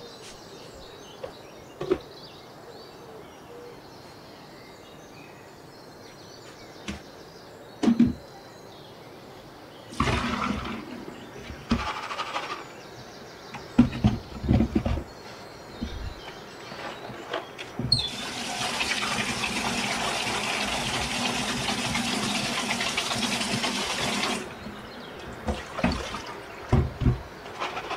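Kitchen tap running steadily for about six seconds over a plastic colander of soaked fava beans in a steel sink, rinsing them. Before and after it come short knocks and rattles of the colander and dishes being handled.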